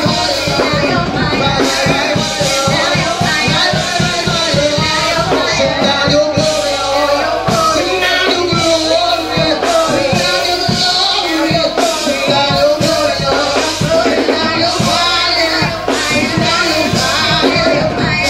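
Gospel praise-and-worship music: a singer over a band with a drum kit keeping a steady beat.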